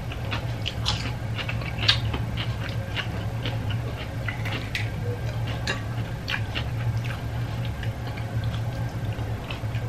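Eating sounds at close range: chewing and mouth noises with scattered small clicks of cutlery and fingers against plates, over a steady low hum.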